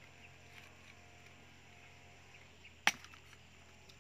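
A machete chopping into a young green coconut: one sharp strike near the end, with a few faint knocks before it.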